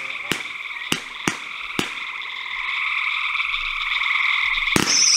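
A steady chorus of frogs trilling, with a few sharp pops from a fireworks cake in the first two seconds. Near the end, the cake fires its next shot with a loud thump and a whistle begins, falling in pitch.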